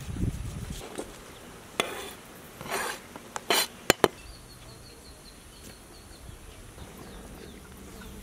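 Kitchen knives clinking and scraping against a steel platter and chopping boards: a few separate knocks and short scrapes, ending in two sharp clicks about four seconds in.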